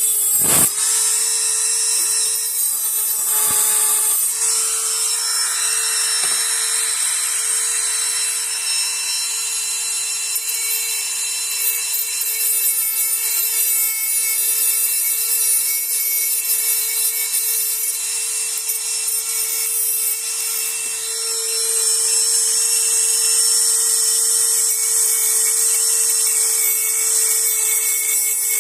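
High-speed electric rotary cutting tool running steadily with a high whine and hiss as it cuts through metal bars on an AK-47, with a sharp knock about half a second in.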